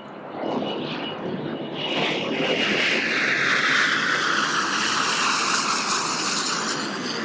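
Embraer ERJ-145XR regional jet's twin turbofans passing on arrival: a jet rush that builds, peaks about four seconds in, and then eases, with a whine that slides down in pitch as the plane goes by.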